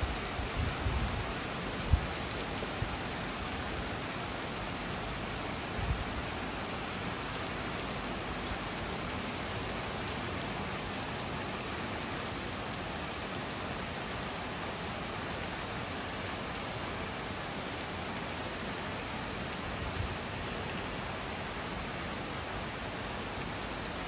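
Steady rain falling on a street and on tree leaves, an even hiss. A few brief low thumps come in the first two seconds, with single fainter ones later.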